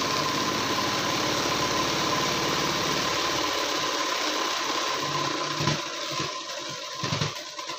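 Domestic sewing machine stitching a straight seam through the blouse fabric, running fast and steady with a constant whine, then slowing over its last few seconds and stopping just before the end.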